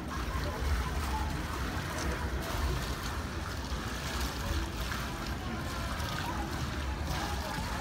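Wind rumbling steadily on the phone's microphone at a high open rooftop, with faint distant voices mixed in.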